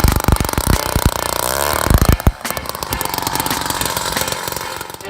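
Small gas engine running steadily, with wind buffeting the microphone in heavy low gusts during the first couple of seconds.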